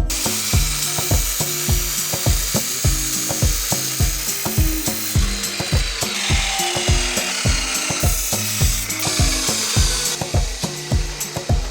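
A power tool working on steel: a dense hiss with a falling whine midway that starts and stops abruptly. It plays over background music with a steady beat.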